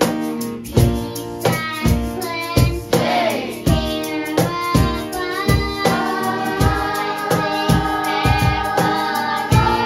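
Children singing a song together, accompanied by a strummed Takamine acoustic guitar, over a steady beat; from about six seconds in they hold long notes.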